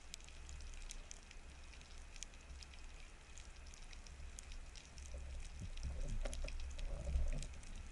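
Underwater sea ambience heard through a camera housing: a constant crackle of scattered sharp clicks over a low water rumble. A louder low swishing and rumbling comes in during the second half, swelling near the end.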